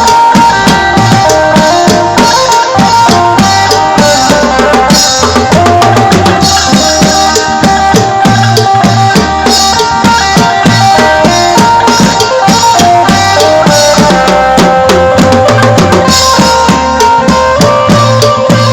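Live Isan folk music from a phin prayuk band: an amplified phin melody over a drum kit and bass, playing a steady dance beat.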